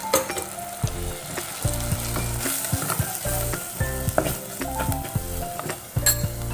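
Spice-coated masala sizzling in coconut oil in a clay pot as a ladle stirs chilli powder and turmeric through it, with scattered light clicks and scrapes of the ladle against the pot.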